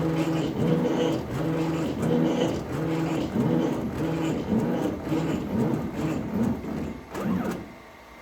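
Stepper motors of a CNC laser engraver whining as the head sweeps back and forth, making a pitched tone that repeats about twice a second with each pass. The sound drops away briefly near the end.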